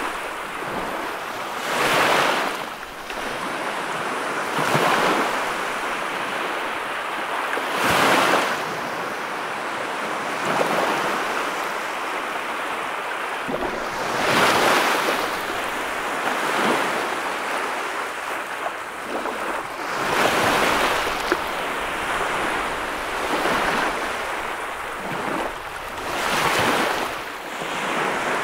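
Small waves washing up onto a sandy beach and drawing back, each wash swelling and fading about every three seconds.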